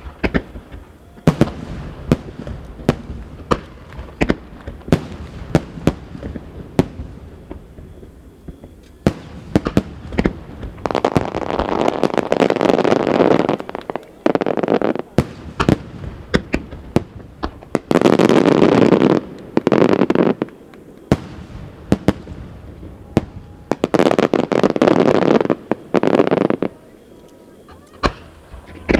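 Aerial firework shells bursting one after another with sharp booms. Several stretches of dense continuous noise lasting two to three seconds each are the loudest parts.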